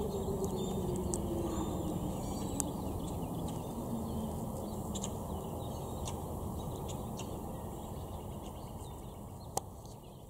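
Outdoor warning siren winding down, its falling pitch dying out over the first couple of seconds. After that comes a low rumbling outdoor background with scattered short bird chirps and one sharp click near the end, the whole fading away gradually.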